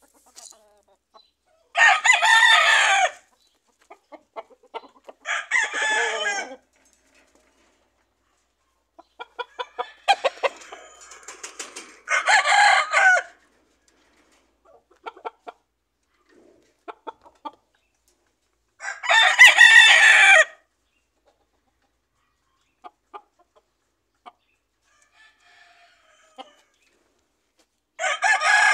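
Game roosters crowing: five crows of about a second and a half each, spaced several seconds apart, the last near the end. Short clicks are scattered between the crows.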